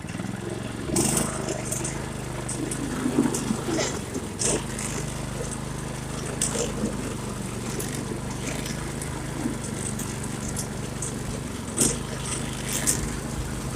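Go-kart motor running at a steady, even pitch while pushing through deep floodwater, with scattered short, sharp splashing sounds on top.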